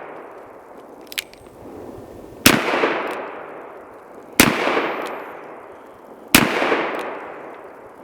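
Smith & Wesson Governor revolver firing half-ounce .410 slugs: three shots about two seconds apart, each followed by a long echo that dies away.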